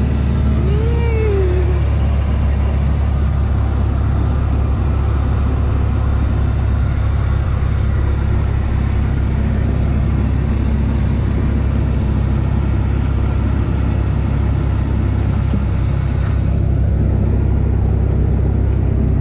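Single-engine light aircraft's piston engine and propeller running steadily at low power while taxiing, heard from inside the cabin as an even, low drone.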